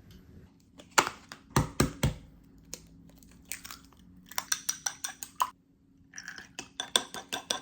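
Plastic takeout containers being handled and opened, with a few sharp knocks and then runs of rapid crinkling and crackling of the plastic.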